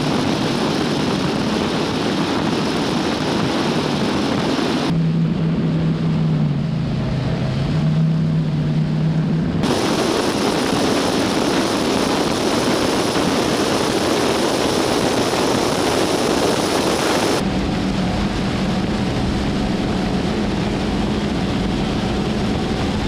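High-performance powerboat running flat out at around 96 mph, heard from an onboard camera: a heavy rush of wind on the microphone with the engine's drone underneath. The sound changes abruptly a few times as the shots cut. In one stretch a steady low engine hum dips briefly in pitch.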